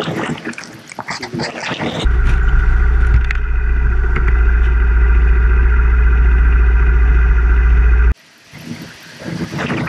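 Motorcycle engine idling steadily with a heavy low rumble, starting abruptly about two seconds in and cutting off abruptly about eight seconds in. Before and after it, a rougher, changing road noise.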